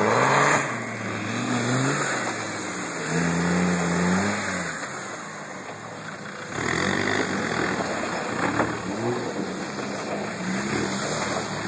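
Land Rover Defender's engine revving up and down under load as it climbs a steep muddy slope, with a dense noise of tyres churning through the mud.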